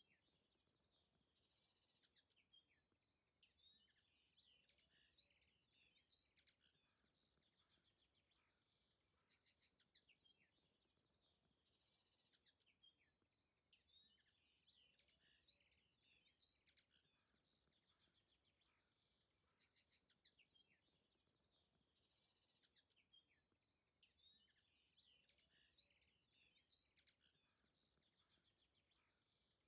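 Faint songbirds chirping and trilling over a soft hiss. The same passage comes round about every ten seconds, like a looped bird-song ambience track.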